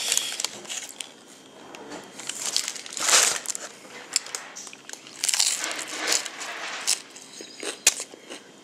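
Crunchy hard-shell taco being bitten and chewed close to the microphone, mixed with the crinkling of its paper wrapper, in a series of separate crunches.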